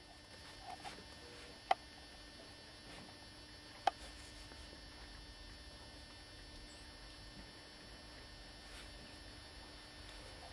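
Faint steady hum with two short sharp clicks, the first a little under two seconds in and the second about four seconds in.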